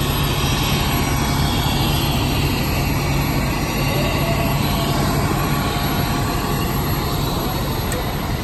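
Fire apparatus diesel engines running steadily at the scene, a constant low hum under a wash of engine noise.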